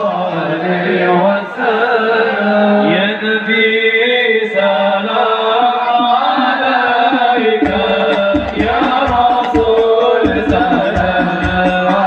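Sholawat, Islamic devotional praise to the Prophet, sung in a chanting melody. About two-thirds of the way in a steady low drum beat of roughly two strokes a second joins the singing.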